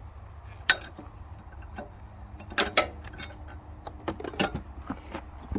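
Scattered sharp knocks and clinks of sawmill parts being handled and taken off during unpacking, with a few close together a little past halfway, over a steady low rumble.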